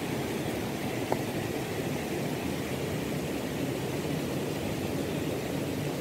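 Steady rushing of a flowing rocky stream, with one brief click about a second in.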